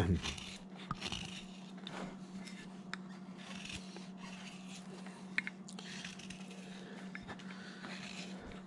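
Faint slicing and scraping of a hand carving gouge paring shavings from a wooden figure, with a few short sharp cuts scattered through, over a steady low hum.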